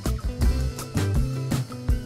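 Background music with a steady drum beat and a heavy bass line.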